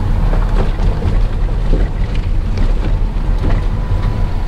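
Campervan driving along a mountain road: a steady, loud low rumble of engine and road noise, with no clear engine note.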